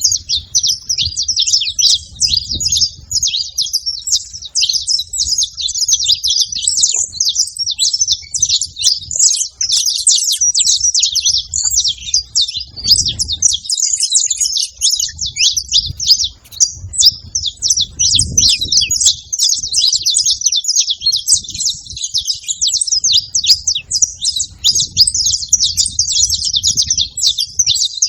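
Saffron finches, a male and a female, chirping and twittering rapidly and without pause in high-pitched overlapping notes.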